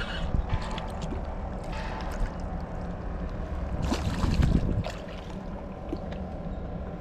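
Spinning reel being cranked as a hooked sheepshead is fought to the boat. The fish splashes at the surface about four seconds in, the loudest sound.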